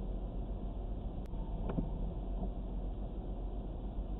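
Steady low rumble of a stationary car's engine idling, heard from inside the cabin, with a single sharp click about a second in.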